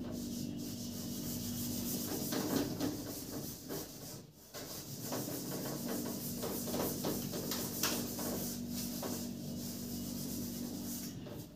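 Steady rubbing and scraping against a writing board, made of many short strokes with a brief break about four seconds in. A low steady hum runs underneath.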